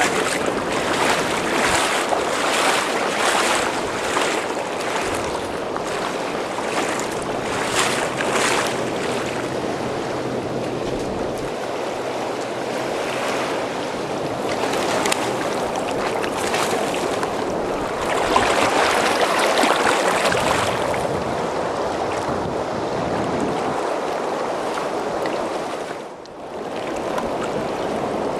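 Steady rush of churning river water below a low dam, with gusts of wind buffeting the microphone, strongest in the first several seconds.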